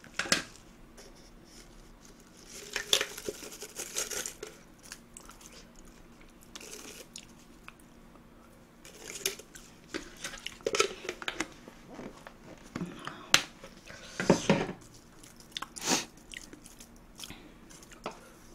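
Close-up eating sounds: chewing and crunching, with the crinkle of a thin plastic cover being peeled off a container and scattered clicks and knocks of tableware being handled.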